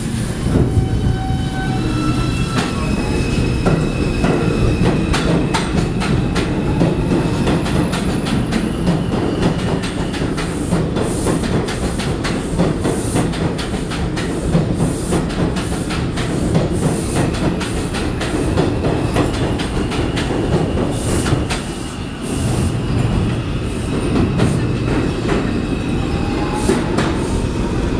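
Ten-car Bombardier R142 subway train pulling out of the station. Its propulsion whine climbs in pitch in steps over the first few seconds, then its wheels clack and squeal as the cars pass and pull away into the tunnel.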